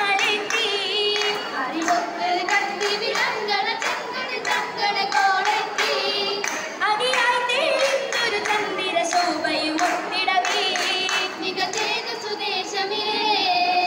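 Oppana performance: girls singing a Mappila song together, with the dancers' rhythmic hand claps keeping time throughout.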